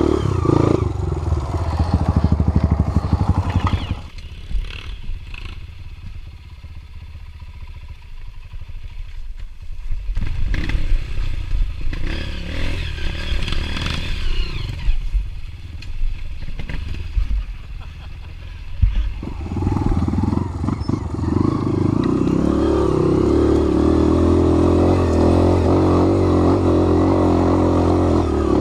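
Off-road trail motorcycle engine running loudly, dropping away for a long stretch in the middle where clattering knocks are heard, then running steadily again for the last third.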